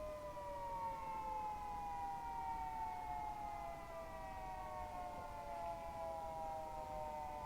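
Federal Signal 2T22B dual-tone outdoor warning siren winding down: its two-note chord begins to fall in pitch at the very start and keeps sliding slowly lower.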